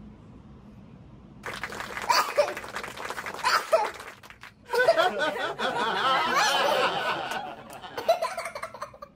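Laughter, starting about a second and a half in after a quiet moment: choppy bursts at first, then a longer stretch of continuous laughing that tails off near the end.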